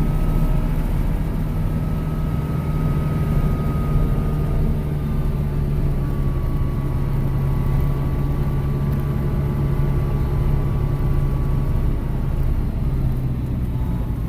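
Kubota M6040 tractor's diesel engine running steadily while pulling a loaded hay trailer along the road, with a faint whine above the drone. The engine note drops slightly near the end.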